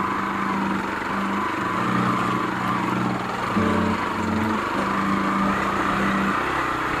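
Hero XPulse 200's single-cylinder four-stroke engine running at low, fairly steady revs, its note shifting a few times as the motorcycle is ridden slowly over rough ground.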